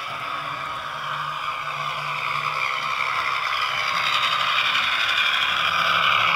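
Howes DCC sound chip playing a Class 121 diesel railcar engine through the small speaker of a Hornby model, the engine note getting louder over the last few seconds.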